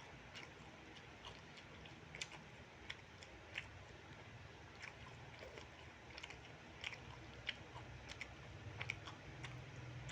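Close-up chewing and biting of fried rice with chicken gizzards: soft, irregular mouth clicks and smacks with an occasional crunch, over a low steady hum.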